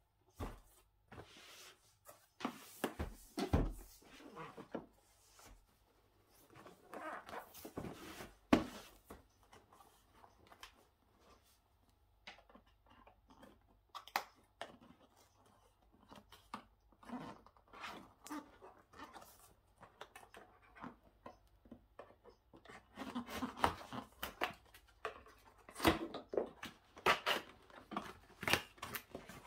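Packaging of a computer speaker set being handled and unpacked: irregular rustles, clicks and small knocks, with one sharp knock about eight seconds in.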